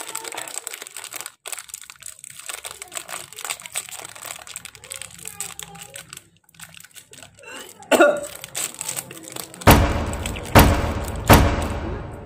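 Crinkling of a plastic snack-cake wrapper being opened and handled, a dense run of fine rustles and crackles. Near the end come three loud, short sounds about a second apart.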